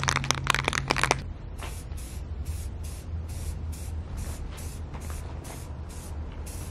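Aerosol spray paint can being shaken for about a second, its mixing ball rattling rapidly, then sprayed in short hissing bursts, about three a second.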